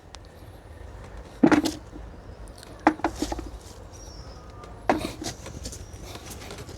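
Potato digging in a garden bed: a few short scuffs and rustles of soil and tubers being handled, the first about a second and a half in and the last near five seconds.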